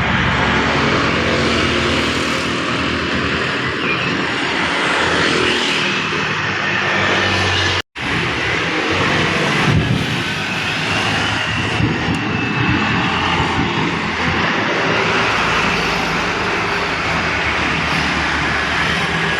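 Aircraft engine drone, steady and continuous, with a split-second gap about eight seconds in.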